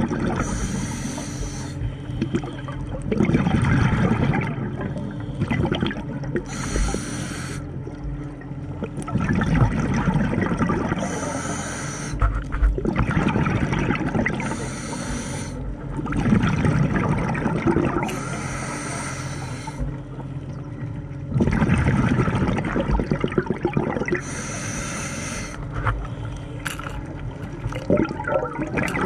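Scuba diver breathing through a regulator underwater: a hiss on each inhale and a bubbling rush on each exhale, in a slow cycle of about one breath every five to seven seconds.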